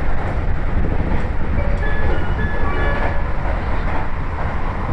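Train running along the line, heard on board: a steady low rumble from the wheels and track. A few brief high tones sound near the middle.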